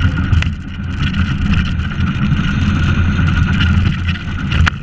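Engineless soapbox cart rolling fast downhill, heard from on board: a steady low rumble of the wheels on asphalt with rattling from the cart. There is a sharp knock about half a second in and a louder one near the end.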